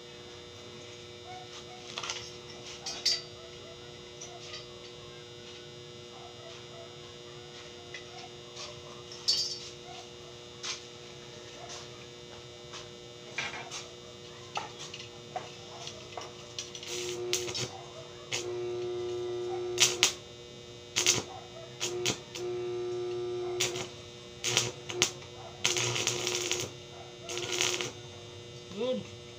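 Stick (arc) welding on steel window-grille bars: the welding machine hums steadily, while the arc is struck in short stretches of steady buzzing and crackle, mostly in the second half, between sharp clicks and taps of metal.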